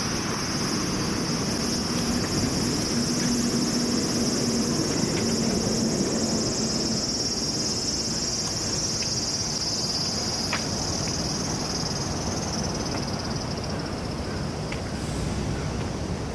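A chorus of cicadas calling steadily in the trees, a continuous high shrill that eases off near the end, over a low background rumble.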